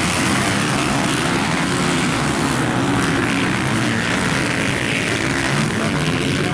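A pack of motocross dirt bikes racing off the start, many engines running at high revs together in a loud, steady drone.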